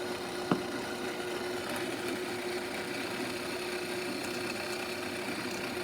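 Stark No. 4 lathe running with a steady hum over a hiss, turning a chunk of brass. A single sharp click about half a second in.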